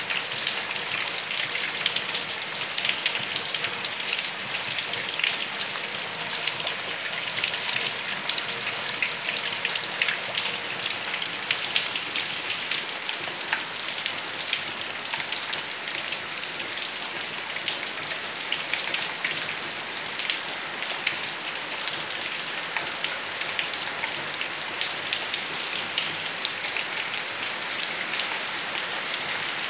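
Steady rain falling: a dense patter of many small drop ticks over an even hiss.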